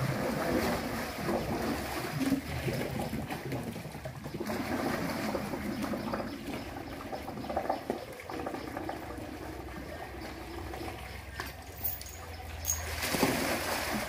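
Water sloshing and trickling around an elephant and its handlers wading in a bathing pool, with louder splashing near the end as the elephant lies down on its side in the water.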